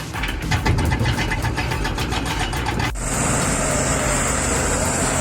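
Heavy machinery's diesel engine running with a fast, even clatter. About three seconds in, the sound cuts abruptly to another steady engine sound with a constant high hiss.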